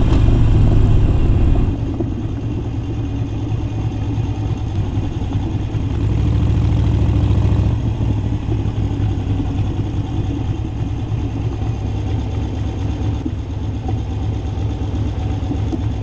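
2017 Harley-Davidson Iron 883's air-cooled V-twin with Vance & Hines Big Radius exhaust, heard from a camera on the bike. It runs loud under throttle for about two seconds, then drops off, pulls again briefly around six seconds in, and settles to a lower steady run as the bike slows and stops.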